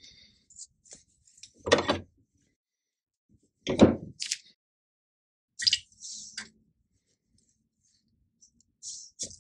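Compressed-air blow gun firing short bursts into a shock absorber to push its internal floating piston back: two loud, sudden blasts about two seconds apart, then a few shorter, thinner hisses.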